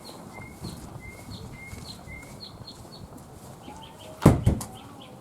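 A small bird chirping repeatedly, short high notes about twice a second. A single loud thump comes a little over four seconds in.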